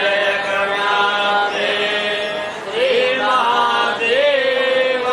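Sanskrit mantras chanted in a drawn-out, sing-song voice, with long held notes and short slides in pitch.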